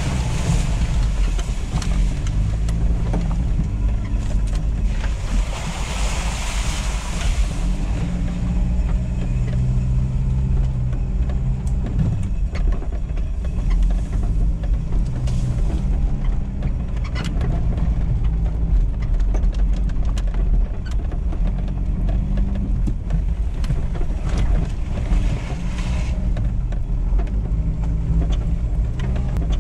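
Cabin sound of a 1995 Toyota Land Cruiser KZJ78's 3.0 turbo-diesel 1KZ-TE engine pulling at low speed over a rough track, its note rising and falling with the throttle, with scattered knocks and clicks. Near the start and again about six seconds in there is a hiss of tyres through wet mud.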